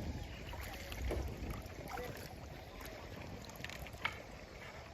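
Water splashing and lapping around a bamboo raft being poled along the river, with scattered small knocks and splashes. Wind rumbles on the microphone about a second in.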